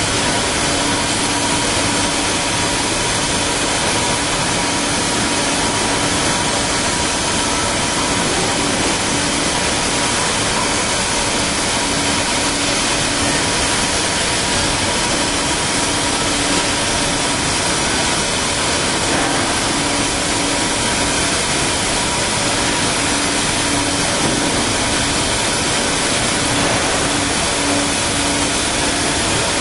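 Cutting torch on a Kaltenbach WBZ 1500 plate profiling machine cutting through steel plate: a loud, steady hiss with a constant low hum underneath.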